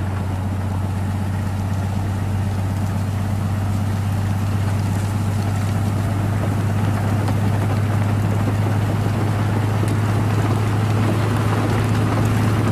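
Locomotive ploughing through deep snowdrifts: a steady low engine drone over a continuous rush of snow and wind noise.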